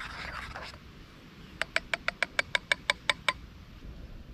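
A utensil stirring and scraping in a small metal camping pot of coffee. Then comes a quick, even run of about a dozen sharp, ringing clicks, about six a second, growing louder.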